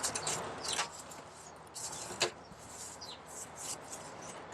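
Small birds chirping repeatedly in quick, high, falling notes, with one sharp click about two seconds in.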